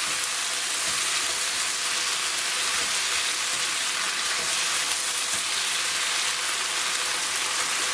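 Onion, tomato and sweet corn frying in a pan, with a steady sizzle as the mixture is stirred.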